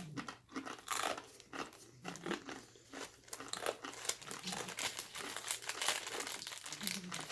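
Crunching of a Paqui One Chip Challenge tortilla chip being bitten and chewed close to the microphone, irregular crisp crackles all through.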